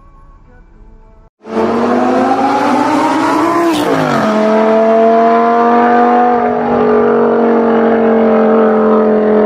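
Audi R8 sports car engine accelerating hard, starting suddenly about a second and a half in. Its pitch rises, drops sharply at a gear change about four seconds in, then holds a loud, steady high note.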